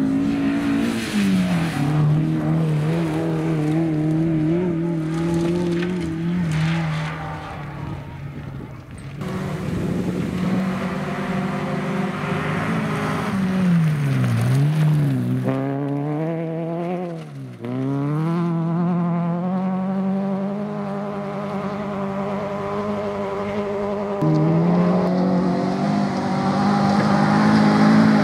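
Rally car engines at full throttle on a gravel stage, the note holding and climbing in each gear and dropping sharply at the changes. In the later part, a Peugeot 306 rally car revs hard, its engine note falling and rising steeply twice in quick succession.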